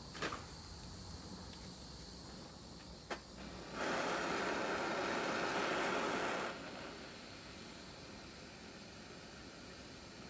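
Gas torch hissing as it heats a copper lug for soldering, much louder for about three seconds in the middle, with a couple of light clicks.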